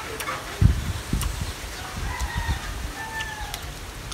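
A rooster crowing once, an arching call starting about two seconds in, over a few low thumps near the start.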